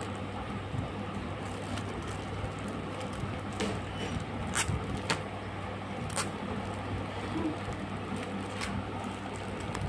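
Plastic courier mailer bag rustling and crinkling as it is handled and torn open, with a few sharp crackles from about halfway on, over a steady low hum.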